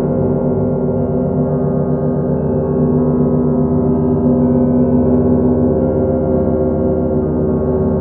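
Computer audio model of the festive peal (Prazdnichny zvon) of the St Sophia belfry bells in Veliky Novgorod, reconstructed from an early-20th-century account: many bells ringing together, deep sustained tones under rapid repeated strokes.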